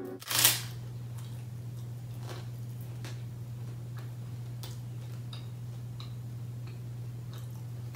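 A crisp crunch about half a second in as a puffed rice roll is bitten, then faint, irregular crunching clicks of it being chewed, over a steady low hum.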